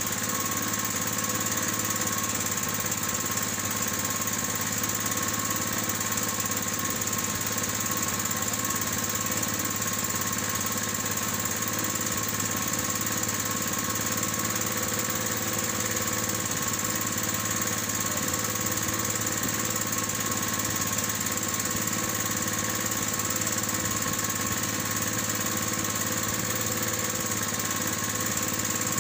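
A small engine on an outrigger fishing boat running steadily at an unchanging speed, with a rapid chugging beat.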